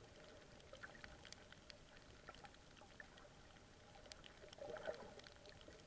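Faint underwater coral-reef crackle: scattered sharp clicks, several a second, of the kind snapping shrimp make, with a brief louder rustle about five seconds in.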